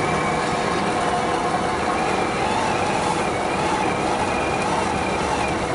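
1/10-scale RC4WD Gelande II Defender 90 crawler driving through loose sand and gravel: a wavering whine from its drivetrain over the steady hiss and crunch of the tyres digging in.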